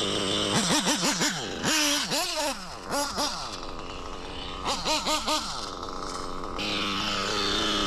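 REDS R5T nitro engine idling and blipped repeatedly, its revs rising and falling in short bursts. Under it runs a strange hissing noise that sounds really weird; the owner thinks it is a failing rear bearing, not the clutch.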